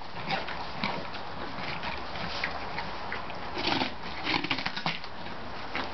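Horses eating, snuffling through hay and straw bedding: irregular crunching and rustling, with a few louder snuffling breaths about halfway through.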